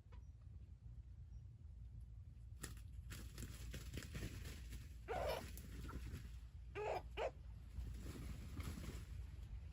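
Three short animal calls over a faint low rumble and light rustling: one call about five seconds in, then two in quick succession a little later.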